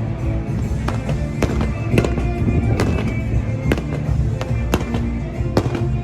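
Irregular sharp cracks and knocks, about one to two a second, over music.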